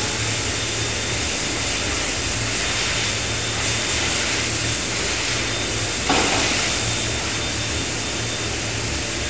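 Steady hiss and low hum of forging-shop machinery running, with one brief knock about six seconds in.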